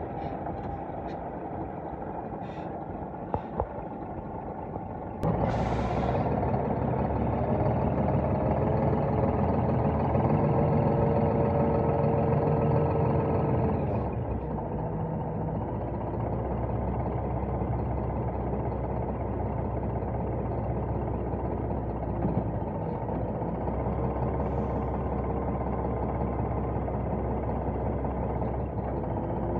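Scania R480 hooklift truck's inline-six diesel running while the hydraulic hook arm is worked. About five seconds in there is a short hiss and the engine gets louder; about fourteen seconds in it drops back to a steadier, quieter run.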